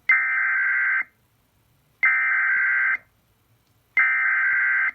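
Emergency Alert System SAME header: three bursts of warbling digital data tones, each about a second long with a second's gap between them. This is the coded header that opens an EAS activation and carries the event code for a severe thunderstorm warning.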